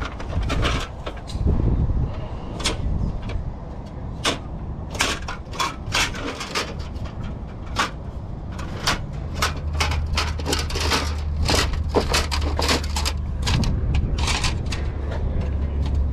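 Old metal license plates clacking and rattling against each other as they are flipped through one by one in a plastic crate. A low steady hum comes in about halfway through.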